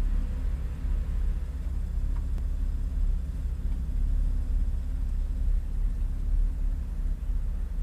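Porsche flat-six engines idling, a steady low rumble heard from inside a car's cabin.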